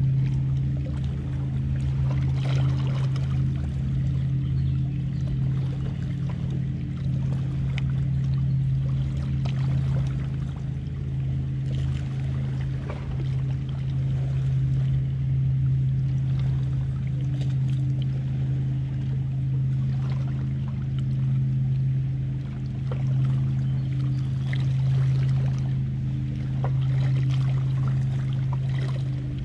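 Steady low drone of a motorboat engine on the lake, with small waves lapping at the rocky shore.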